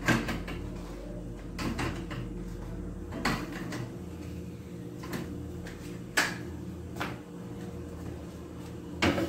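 Items being handled in an open refrigerator: a series of separate knocks and clatters as containers and a plastic egg tray are set on the fridge's shelves. A steady low hum runs underneath.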